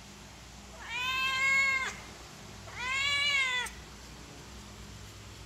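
A domestic cat meowing twice: two long meows about a second each, each rising and then falling in pitch, the second coming about a second after the first. A hungry cat begging for food.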